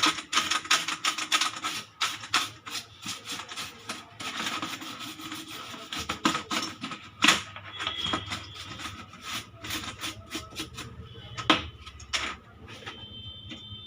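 Plastic computer keyboard parts being handled and brushed: many sharp clicks and taps, with a stretch of dense rubbing a few seconds in.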